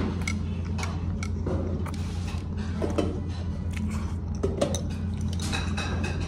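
Scattered clinks and knocks of chopsticks and tableware, with a metal steamer stack handled and ringing briefly near the end, over a steady low hum.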